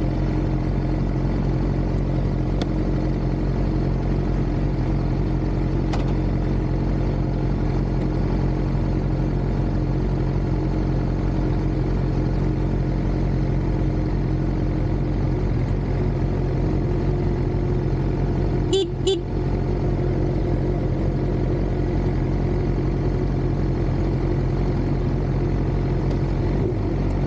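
Suzuki GSX-R600's inline-four engine idling steadily, with two brief sharp clicks about two-thirds of the way through.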